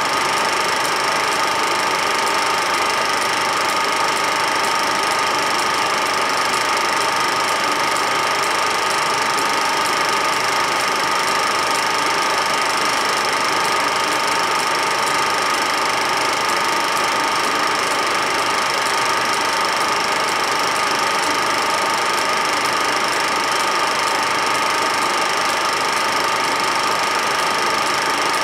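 Film projector running: a fast, even mechanical clatter with a steady hum of fixed tones, unchanged through the shot changes.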